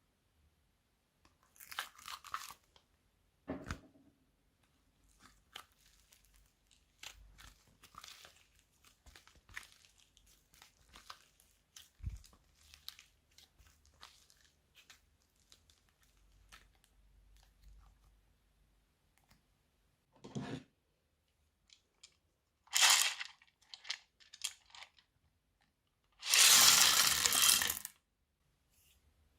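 Slime being mixed and stretched by hand: scattered small sticky clicks and crackles, with louder crackling bursts now and then and the longest, loudest one near the end.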